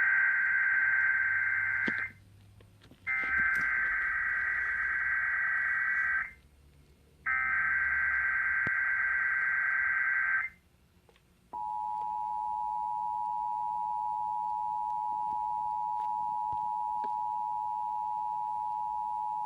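Emergency Alert System SAME header: harsh, warbling digital data bursts, three in all, each about three seconds long with a second's gap between them. About a second after the last burst, the steady two-tone EAS attention signal starts, announcing a Required Monthly Test.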